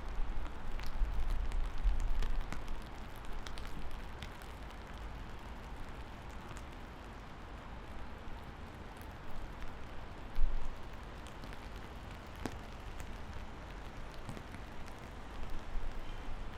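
Steady rain falling, with scattered individual drops ticking close by. A low rumble swells in the first couple of seconds and again briefly about ten seconds in.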